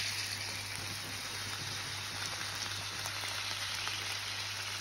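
Potato-wrapped pike-perch fillets sizzling in hot oil and butter in a frying pan: a steady hiss with small crackles.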